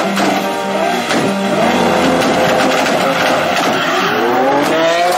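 A Lamborghini Aventador V12 and a turbocharged VW Polo R32 rev at a drag-race start line, then launch, their engine notes rising in pitch together about four seconds in.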